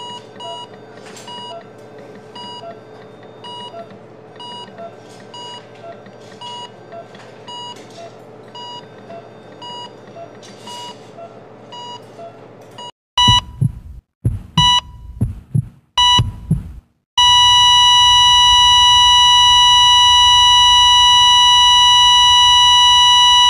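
Hospital heart monitor beeping at a steady pace, about once a second. About 13 seconds in it breaks into a few loud, chopped tones, then settles into one continuous loud flatline tone: the patient's heart has stopped.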